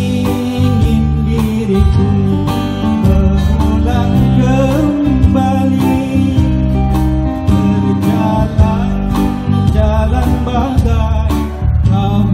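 Live band music: a guitar plays over keyboard and drums, with a steady beat throughout.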